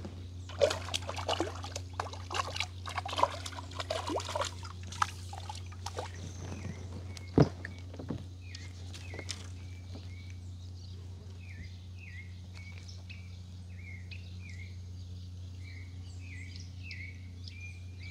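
A hooked fish splashing and thrashing at the water's surface as it is pulled out on a fishing pole: a quick run of splashes and slaps over the first six seconds. Then a bird calls over and over with short falling chirps, about one and a half a second, over a steady low hum.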